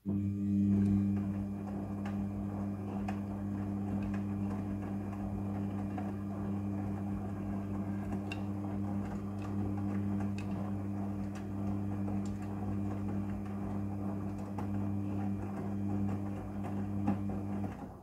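Midea front-loading washing machine running its drum during a wash: a steady motor hum with the wet load tumbling. It starts and stops abruptly.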